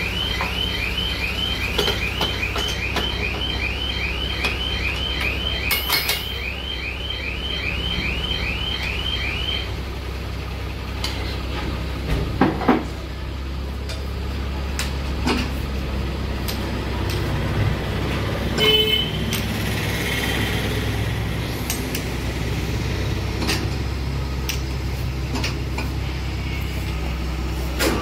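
Crankshaft grinding machine running with a steady low hum, with scattered metal clicks and a sharp clank about twelve seconds in. For the first ten seconds a repeating chirping beep, about three a second, sounds over it.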